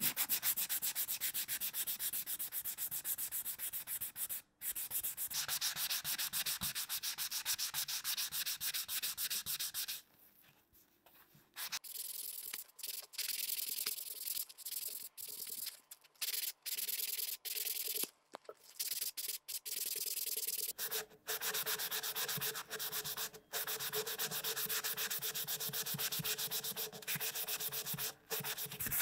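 Sandpaper of about 500–600 grit rubbed rapidly back and forth over a rock-hard stick of dried skipjack tuna (katsuobushi): a dry, rasping scrape in quick, closely spaced strokes. It nearly stops about ten seconds in, comes back in short broken stretches, then runs steadily again for the last third.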